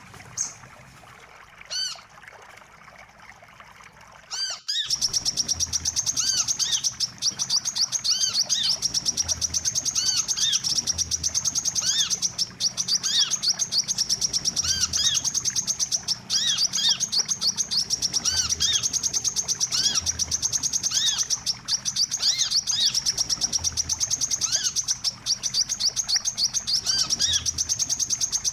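Recorded sunbird (wiceh) calls played as a trapping lure. A few sparse high calls come first; about four and a half seconds in the track cuts abruptly to a dense, rapid, high chirping with short arched notes repeating through it.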